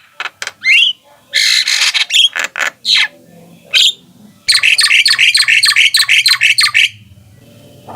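Javan myna calling: harsh, scratchy chatter notes and short whistles, then a fast run of repeated notes, about six a second, lasting over two seconds. The calls stop about a second before the end.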